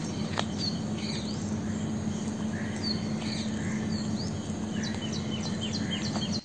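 Small birds chirping in garden trees: scattered short, high chirps, then a quick run of repeated notes at about five a second near the end, over a steady low hum.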